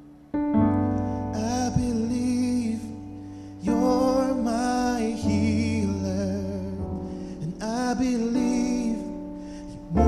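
A song with piano accompaniment and a singer, coming in just after the start. The voice sings several short phrases of held notes with vibrato over sustained piano chords.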